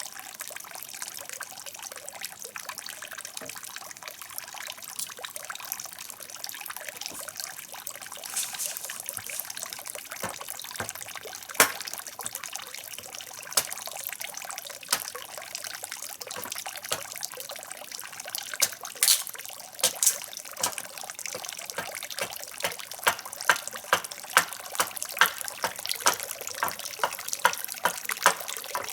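Water trickling steadily, with sharp knocks here and there that settle near the end into a regular beat of about two a second.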